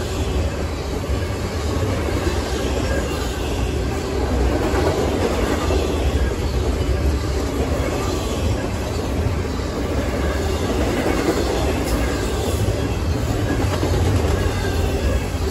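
Double-stack container freight train passing, a steady, even noise of the cars and their wheels running on the track.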